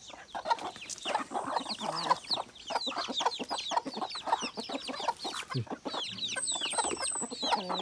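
A flock of native chickens feeding: hens clucking and chicks peeping, many short falling calls a second in a steady chatter.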